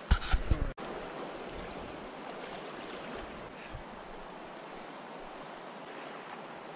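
Steady rushing of a shallow stream running over gravel. A few loud knocks in the first second, then the water alone.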